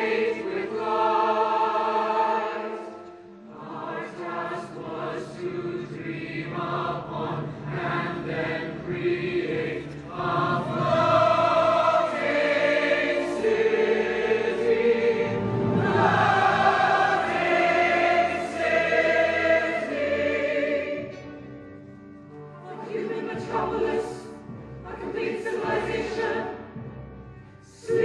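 Choral music: a choir singing sustained lines over accompaniment, dropping back about three-quarters of the way through and swelling again near the end.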